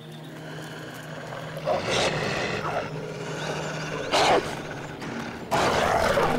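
Cartoon wolf growling and snarling, in loud rough bursts about two seconds apart that get louder toward the end.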